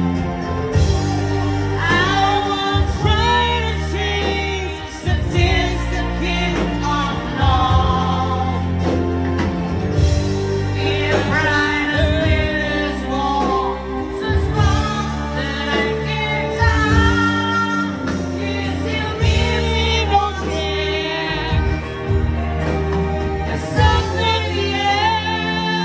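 Live band performing a song with a lead singer, electric guitars and bass, amplified through a club's sound system.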